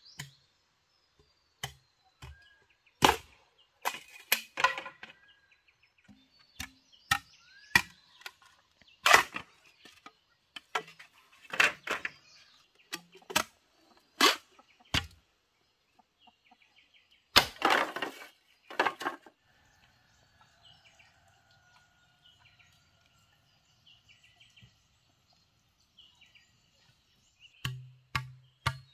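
Bamboo being chopped and split with a blade: about twenty sharp, irregular knocks and cracks. There is a quiet spell of several seconds before a last few strikes near the end.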